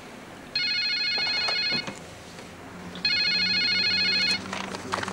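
Landline telephone ringing twice with an electronic trill, each ring a little over a second long with a pause of about a second between them, followed by a few clicks near the end.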